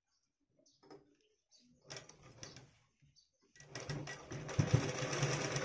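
Quiet rustling and small knocks of denim being positioned under the presser foot. About three and a half seconds in, a Bharat sewing machine starts and runs steadily, stitching.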